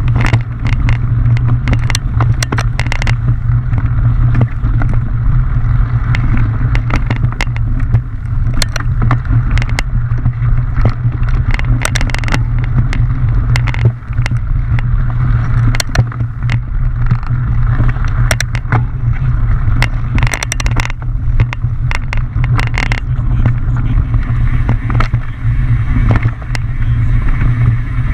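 A mountain bike running down a rough trail, heard from a camera on the bike or rider: steady heavy low noise from wind and trail buzz, with frequent irregular clatters and knocks as the bike rattles over rocks and roots.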